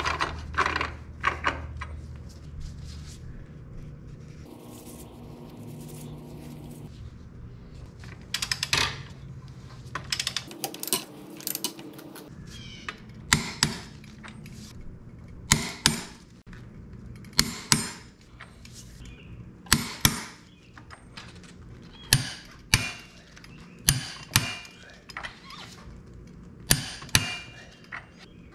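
Metal parts and tools clinking and clanking: a series of sharp metallic knocks, each with a short ring, coming about every one to two seconds through the second half.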